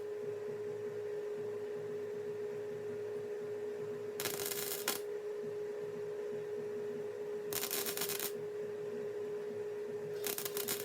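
Three short bursts of welding-arc crackle, each under a second, as patch pieces of 18-gauge sheet steel are tack-welded, about four, seven and a half and ten seconds in. A steady hum runs underneath throughout.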